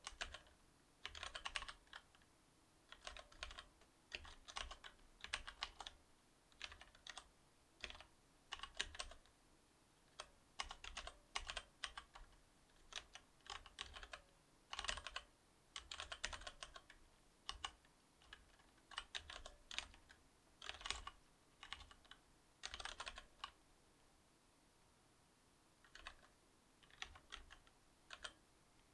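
Typing on a Cherry MX Board 8.0 mechanical keyboard with Cherry MX Silver switches: quick runs of keystrokes with short pauses between them, and a longer pause about three-quarters of the way through.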